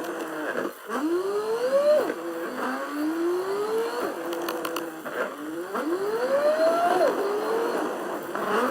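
Car engine accelerating through the gears. The engine note rises in pitch, drops suddenly at each shift, holds briefly, then climbs again, about four times over.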